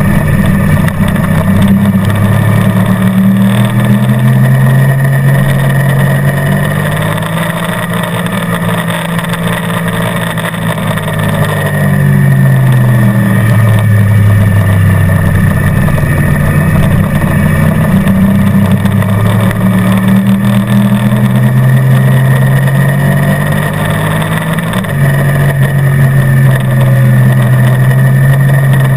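Motorcycle engine running at track speed. The engine note falls away for several seconds as the throttle closes, then climbs again under acceleration, and near the end it jumps up sharply in pitch.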